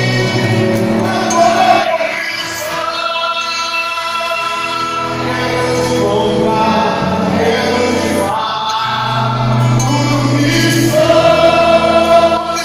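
Live gospel worship song: voices sing long, held notes over an accompaniment of long low bass notes, heard from among the audience in a large hall.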